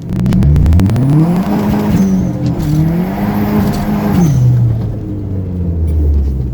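Mercedes-Benz CL55 AMG's supercharged V8 revved twice, the pitch rising and falling with each rev, then dropping back to a low steady idle for the last couple of seconds.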